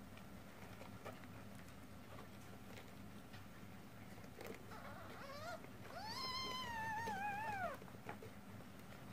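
A newborn kitten mewing: a short, fainter cry a little past halfway, then a longer, louder high cry that rises and slowly falls. These are the calls of a kitten jostling for a teat among its nursing littermates.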